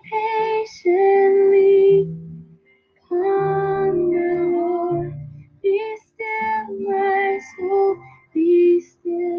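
A woman's voice singing a slow worship song over soft musical backing. The singing comes in short phrases of long held notes, broken by brief pauses.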